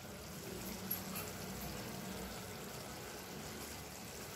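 Faint steady simmering of egg masala gravy in a pan on a low flame, with a couple of light clicks from a spatula turning the egg halves about a second in.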